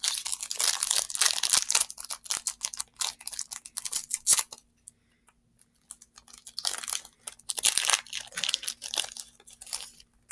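Foil wrapper of a Yu-Gi-Oh! Speed Duel booster pack being torn open and crinkled in the hands: dense crackling for about four seconds, a pause of about two seconds, then more crinkling.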